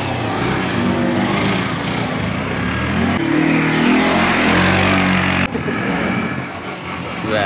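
Motorcycle and quad-bike engines running, in clips cut together. The engine sound changes abruptly about three seconds in and again about five and a half seconds in.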